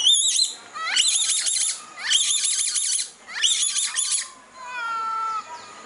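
Young monkey giving high-pitched squealing calls: four quick bursts of rising, wavering squeals, then a lower, falling trill near the end.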